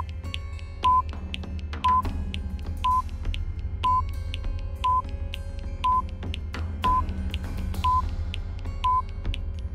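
Countdown timer beeping: short electronic beeps, one a second, about ten in all, over soft background music.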